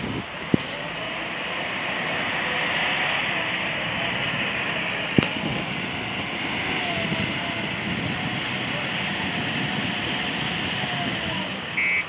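JCB backhoe loader's diesel engine running steadily as the machine works in sand, with two sharp clicks, one about half a second in and one about five seconds in.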